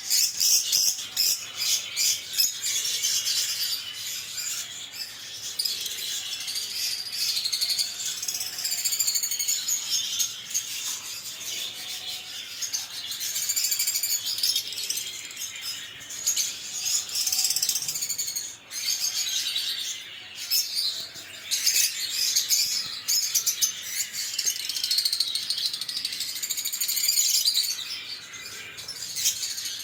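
Lovebirds (Agapornis) chirping and chattering continuously: dense, rapid high-pitched chirps and warbling notes, with several birds calling at once.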